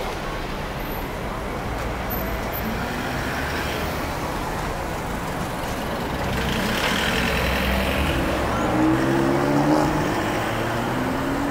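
Road traffic at a city intersection: cars and a van passing close by with a steady low rumble. Near the end an engine rises in pitch as a vehicle accelerates away.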